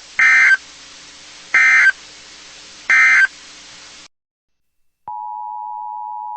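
Emergency Alert System end-of-message signal: three short digital data bursts (the SAME EOM code) about a second apart, marking the end of an alert. After a second of silence, the steady two-tone EAS attention signal starts about five seconds in, announcing the next alert.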